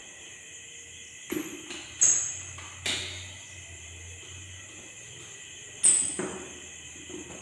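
Four sharp knocks, each with a short ringing tail: three close together in the first three seconds and one about six seconds in, over a faint steady hum.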